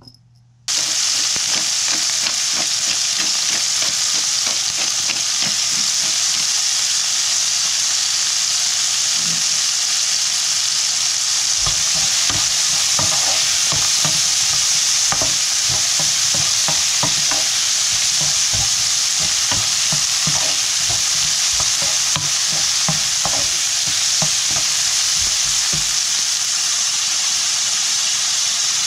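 Food sizzling hard in a hot wok, starting abruptly just under a second in. From about ten seconds in, a spatula scrapes and knocks against the wok in quick, uneven strokes as the food is stir-fried.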